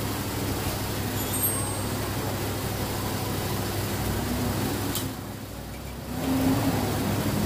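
A steady low mechanical hum with a hiss over it, briefly interrupted by a click and a quieter second about five seconds in.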